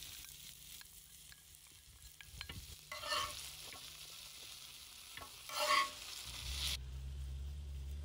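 Meat, peppers and mushrooms sizzling on a metal griddle pan over wood coals as white sauce is poured on, with a metal spoon ticking and scraping against the pan; two louder scrapes about three and five and a half seconds in. Near the end the sizzle stops and a low steady rumble takes over.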